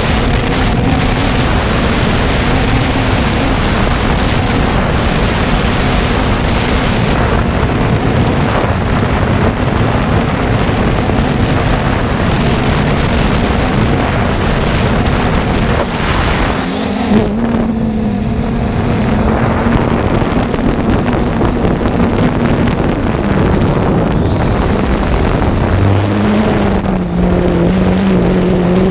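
Multirotor drone's motors and propellers humming steadily, with wind rushing over the onboard camera's microphone. The hum shifts pitch about halfway through and again near the end as the motors change speed.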